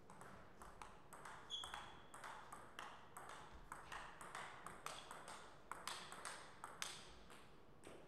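Table tennis rally: the celluloid-type ball clicks sharply and irregularly off the paddles and the table, several hits a second, for about seven seconds before the point ends. A brief high squeak about a second and a half in.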